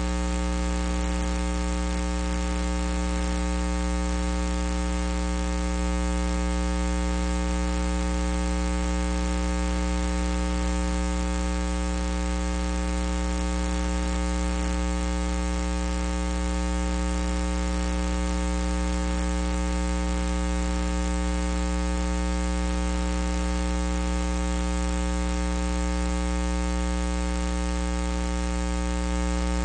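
Steady electrical mains hum and buzz, a stack of unchanging tones with a hiss over them; no ring or crowd sounds stand out.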